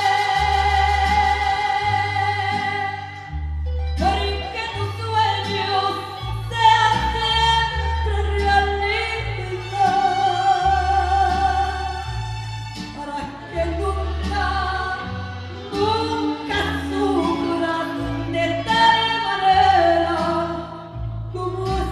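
A woman singing a Spanish-language song live, backed by a mariachi band with violins and a bass line that steps from note to note. She holds one long high note at the start, then sings a moving melodic line over the band.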